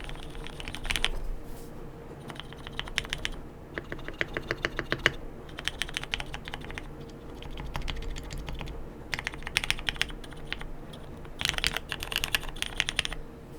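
Mode Sonnet mechanical keyboard typed on in quick bursts: rolling runs of keystrokes on lubed, filmed Hyperglide Black linear switches under KBDfans Clear Aurora keycaps, with short pauses between bursts. The typing stops shortly before the end.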